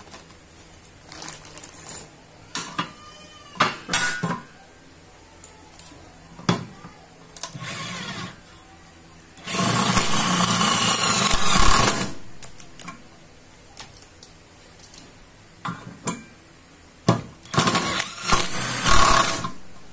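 National 12V cordless drill-driver running under load, driving a screw into a steel square tube: one long run of about two and a half seconds near the middle, then a few shorter bursts near the end, with clicks and knocks from handling the tool and bar in between.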